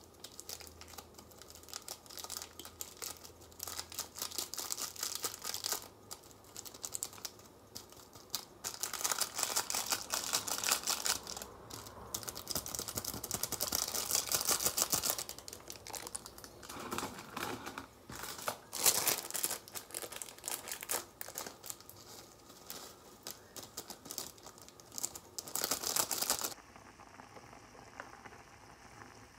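Foil seasoning sachets of instant Korean ramyun being torn open, crinkled and squeezed out over the pot, in uneven crackling bursts. Near the end the crinkling stops and gives way to a faint steady hiss.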